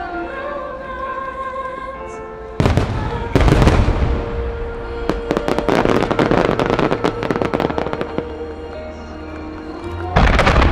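Starmine of large aerial firework shells going off over music: two heavy booms about two and a half seconds in, then several seconds of dense crackling, and another boom near the end.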